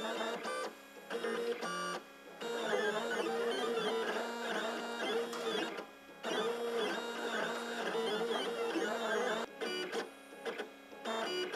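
Gravograph M20 rotary engraving machine running an engraving job, its drive motors whining in tones that sweep up and down in pitch as the head moves. The whine breaks off briefly about two seconds in, about six seconds in, and several times near the end.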